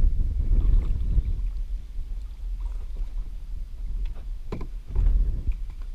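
Low rumble of wind and handling noise on the microphone, with a few short knocks about four and a half seconds in.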